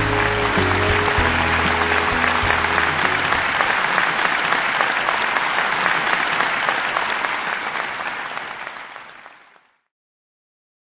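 Audience applauding over the orchestra's final held chord, which stops about three seconds in. The applause carries on alone, then fades out to silence near the end.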